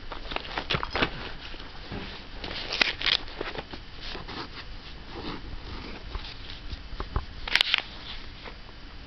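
Sheets of paper rustling and crinkling under a cat lying and pawing on them, in irregular short bursts, loudest about three seconds in and again about seven and a half seconds in.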